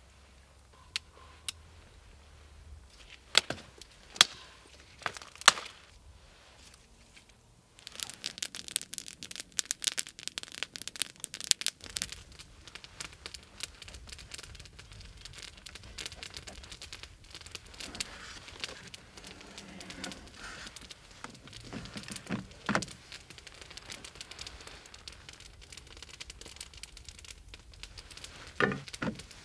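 Small wood campfire crackling: sharp separate snaps at first, then a dense run of crackling for a few seconds. After that, quieter rustling and a few light knocks of a knife working on a plate.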